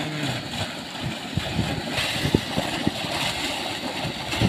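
Water gushing from a tubewell pump's discharge pipe and pouring into a pool, a steady rushing with irregular low thumps.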